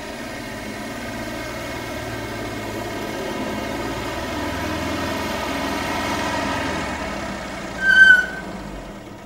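An old car's engine running as the car drives up, growing louder as it approaches. About eight seconds in, as it draws up, there is a brief, loud, high-pitched squeal, and then the engine sound fades.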